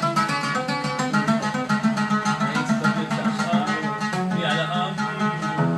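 Oud playing an instrumental passage of quick plucked notes.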